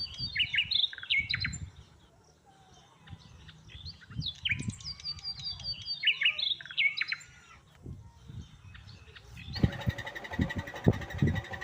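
Birds chirping in two bursts of quick, high, falling notes, with low dull bumps beneath. Near the end the sound changes abruptly to a steady hum with a few knocks.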